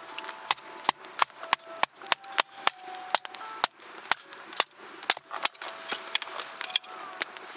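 Campfire crackling: wood snapping and popping in sharp, irregular cracks, several a second, as the fire gets going.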